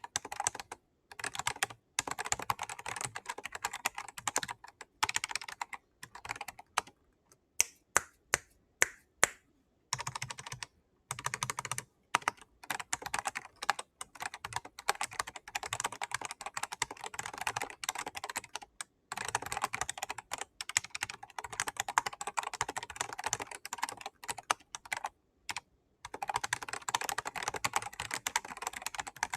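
Typing on the Riskeyboard 70, a 3D-printed mechanical keyboard: quick runs of keystroke clicks broken by short pauses, with a stretch of slower single key presses near the start.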